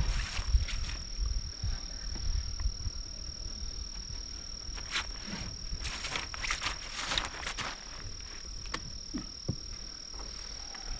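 Steady high-pitched trill of night insects, one unbroken tone, with scattered footsteps, rustling and a few soft thumps over it.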